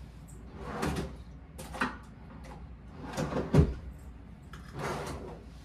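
Handling noises: a series of short rustles and knocks, the loudest a dull thump about three and a half seconds in.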